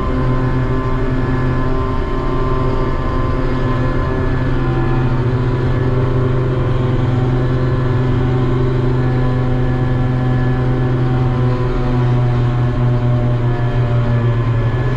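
Ship's deck crane power unit running steadily under working load, heard from inside the operator's cabin: a loud, even low hum with a layer of higher machine tones that shift slightly in pitch as the crane works.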